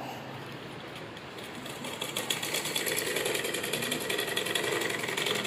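Straight-stitch sewing machine starting up about a second and a half in, then running at a steady fast pace as its needle stitches through a folded cotton hem.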